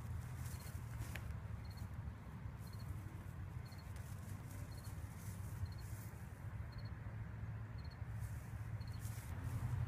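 Outdoor ambience in an open field: a steady low rumble, with a faint high chirp of three quick pulses repeating about once a second.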